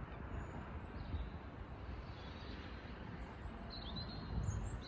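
Outdoor ambience: a few faint, short bird chirps over a steady low rumble.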